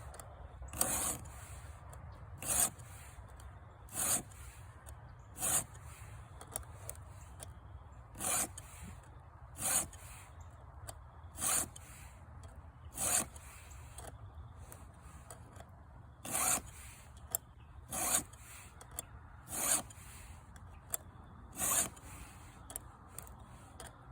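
Chainsaw file rasping across the teeth of a .325 semi-chisel chain in a filing guide: separate push strokes about every one and a half seconds, in three sets of four with a short pause between sets, four strokes to each tooth.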